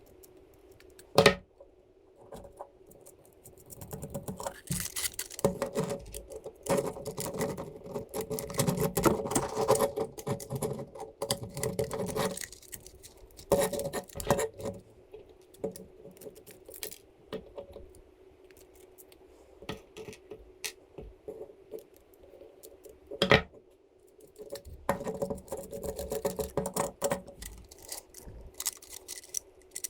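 Small metal screws, nuts and washers and 3D-printed plastic parts being handled during assembly: irregular clicking, rattling and scraping, with a sharp click about a second in and another about two thirds of the way through, over a faint steady hum.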